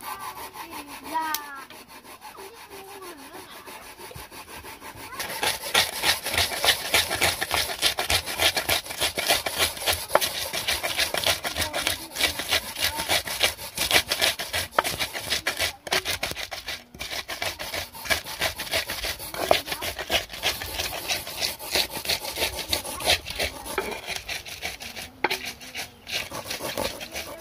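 Rapid, steady scraping strokes of hand food preparation, starting about five seconds in: fresh coconut rasped on a metal hand grater, and chilies, garlic and spices crushed and ground with a pestle in a clay mortar.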